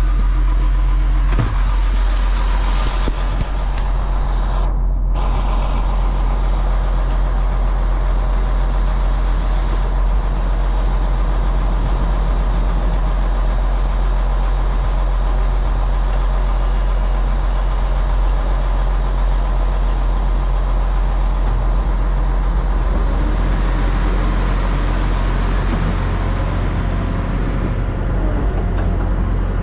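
Haul truck's engine running steadily, heard up close, with a deeper, louder note coming in about 22 seconds in.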